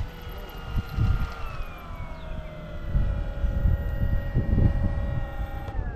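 Electric motor and propeller of an RC plane whining at low throttle while taxiing, the pitch stepping down about a second and a half in and sliding down near the end as the throttle comes off. Gusty wind rumbles on the microphone throughout.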